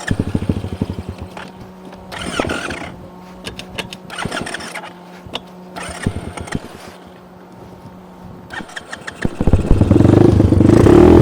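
Homemade snowmobile's small engine running at a low idle, broken by short irregular rattly bursts, then about nine and a half seconds in it revs up loudly and keeps running hard.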